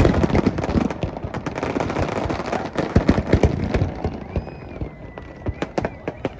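Fireworks going off in dense rapid volleys of crackles and bangs that thin out after about four seconds, with a thin whistle heard during the lull.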